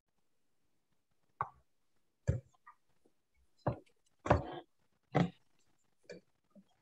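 A series of six or so short knocks and clatters, roughly one a second, starting about a second and a half in, with one slightly longer rustling clatter near the middle: handling noise at a painting table.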